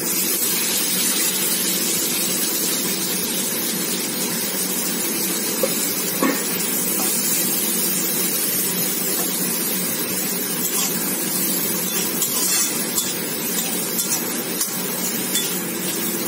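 Chopped onions sizzling hard in hot oil in a kadai, the sizzle rising sharply as they are tipped in and then running steadily. Occasional clicks and scrapes of a spatula stirring against the pan.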